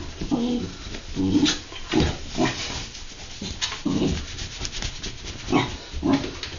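A dog making a run of short, low vocal sounds, about two a second, mixed with sharp clicks.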